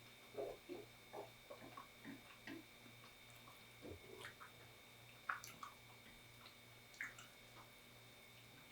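Quiet chewing and wet mouth sounds of someone eating spicy Buldak instant ramen noodles, soft and irregular, with sharper clicks about five and seven seconds in. A faint steady hum lies underneath.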